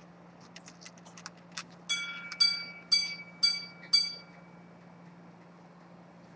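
Antique minute-repeater pocket watch striking: a run of small light clicks as the repeat mechanism is set off, then five clear chime strikes on its gong about half a second apart, each ringing briefly.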